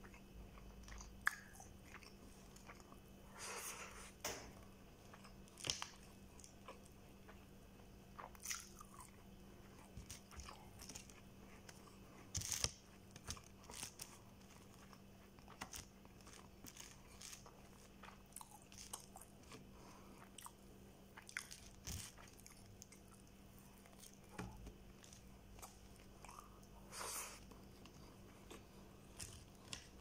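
Close-up mouth sounds of a person chewing and biting into a nasi kandar meal of rice and fried chicken. Quiet chewing is broken by scattered crunches at irregular intervals, the loudest a little before halfway.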